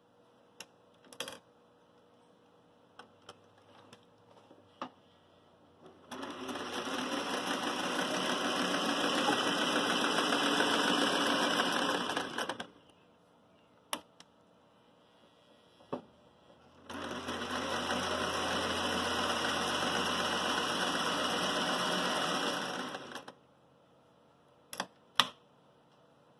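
Singer 401A sewing machine stitching through cotton fabric in two runs of about six seconds each, with a pause between them. A few sharp clicks fall in the quiet gaps.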